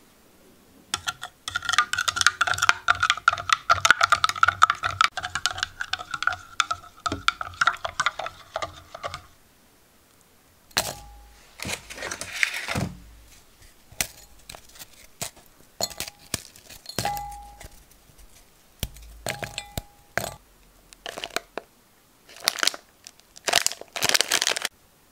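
Espresso being stirred in a glass measuring cup, a rapid clatter with a ringing tone for about eight seconds. Then biscuits are snapped by hand and dropped into a glass bowl as separate cracks and clinks. Near the end comes the crinkle of an Oreo packet's plastic wrapper being opened.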